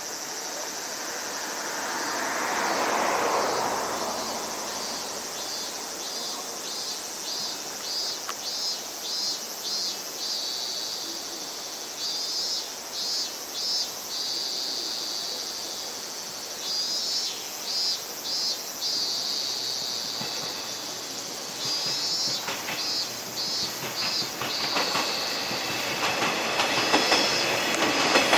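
A train running past, its wheels clicking over the rail joints in quick groups, with a swell of rushing noise a few seconds in.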